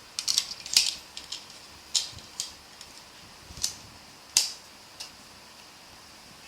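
Sharp hard-plastic clicks and taps from a metal-plated PC phone case being handled: a quick cluster of clicks at first, then about five single clicks spread over the next few seconds.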